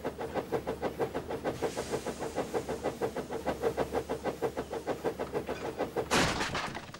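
Steam locomotive chuffing in a quick, even rhythm, about five chuffs a second, with a short loud burst of steam hiss about six seconds in.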